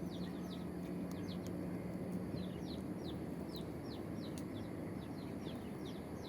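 Birds chirping: a quick, continuous run of short, high, falling chirps, several a second, over a steady low background rumble.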